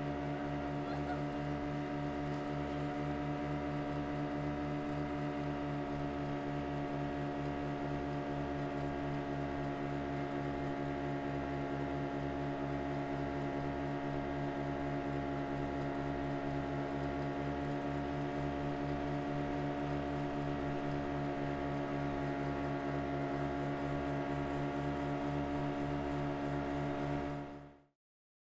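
Motorboat engine running steadily at constant throttle, a continuous even hum with a fast low pulse. It cuts off abruptly just before the end.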